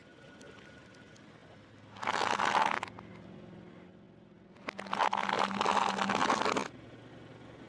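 Crunchy fried food being bitten and chewed close to the microphone: two loud bursts of crackling crunch, a short one about two seconds in and a longer one of about two seconds near the end.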